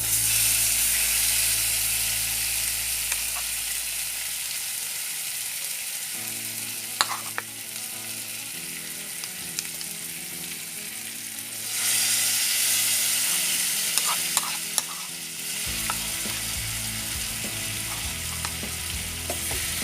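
Marinated chicken drumsticks frying in ghee and butter on a hot tawa, sizzling steadily. The sizzle swells louder about twelve seconds in, and a few light clicks sound midway and near the louder stretch.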